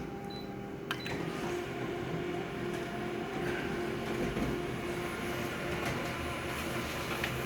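Photocopier running a copy: a steady mechanical hum with a constant tone, with a few sharp clicks as the machine scans and feeds the sheet.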